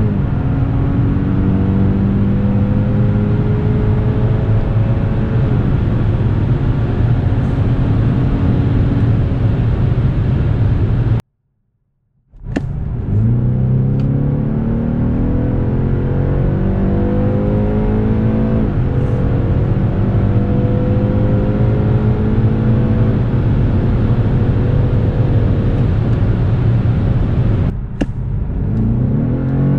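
BMW 530e xDrive's 2.0-litre turbocharged four-cylinder petrol engine accelerating at full throttle, heard from inside the cabin. Its pitch climbs and drops back at each upshift of the automatic gearbox. The sound cuts out for about a second some eleven seconds in, then a new kickdown run starts, and another begins near the end.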